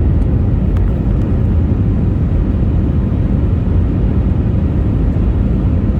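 Airliner's jet engines and rushing air during the takeoff climb: a steady, loud low rumble.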